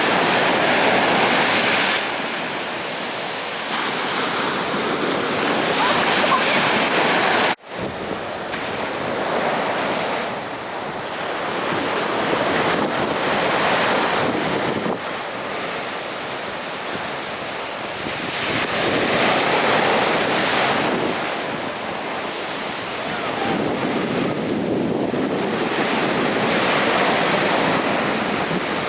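Sea surf breaking on a beach, the wash swelling and fading every several seconds, with wind buffeting the microphone. The sound cuts out for an instant about eight seconds in.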